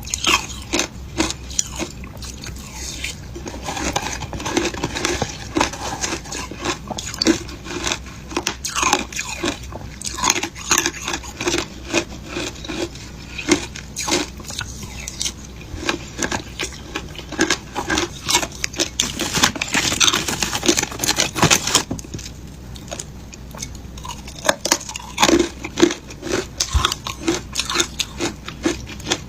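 Mouth biting and chewing passion fruit shaved ice, a dense, irregular run of crisp crunches, briefly sparser a little past the middle.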